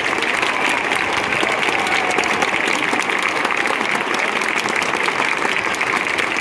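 Large football stadium crowd applauding steadily, with a constant wash of crowd noise, as the home supporters salute their team's win at the final whistle.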